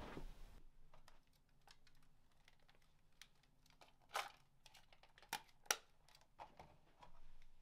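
Quiet hand-handling of a small plastic film camera: soft rustling, then scattered light clicks, with three sharper plastic clicks a little past the middle, the last the loudest.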